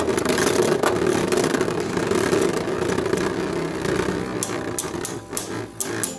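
Two Beyblade spinning tops (Archer Hercules) whirring as they spin and scrape across a plastic stadium floor, with sharp clicks of the tops knocking together that come more often in the second half.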